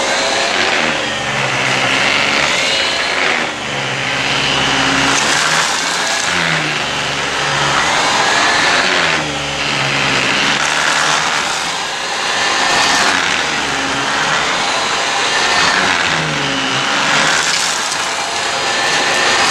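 Dyson vacuum cleaner running, its motor and airflow rising and falling in pitch every couple of seconds.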